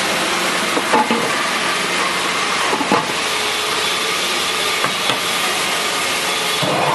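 QS-9J garlic and vegetable chopping machine's electric motor running steadily with a hissing whir, with a few short knocks. Near the end a whine rises in pitch and then holds as the motor speeds up.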